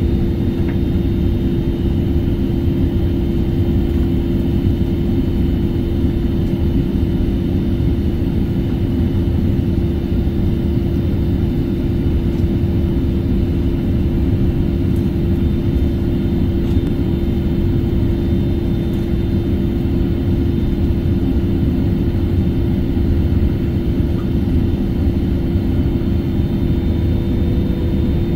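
Steady cabin noise inside a jet airliner on its landing approach: an even roar of engines and airflow with a droning tone under it.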